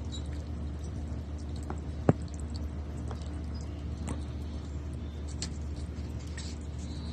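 A thin stream of water trickling and pouring into a birdbath while an Australian magpie bathes in it, with scattered small splashes and drips. One sharp click about two seconds in, the loudest sound, over a steady low hum.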